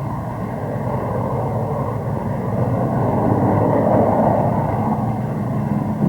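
Jet aircraft in flight: a steady rushing engine noise that grows a little louder toward the middle.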